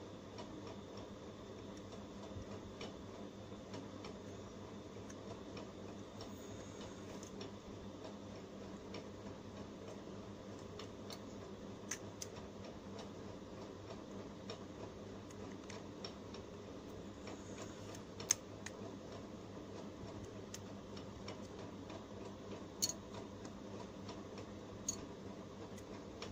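Steady low electrical hum from workbench equipment, with a few sharp clicks as small phone parts are handled and set down on a metal PCB holder, the loudest about two-thirds of the way through.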